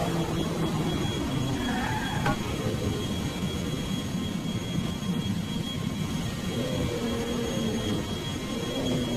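Steady rushing, engine-like noise, resembling a jet engine, with a thin high tone and faint wavering pitches over it.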